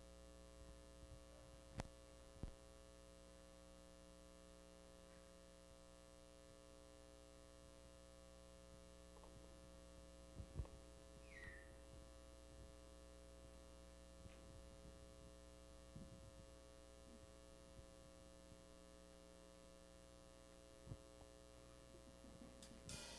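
Near silence: a steady electrical mains hum from the sound system, with a few faint knocks and taps.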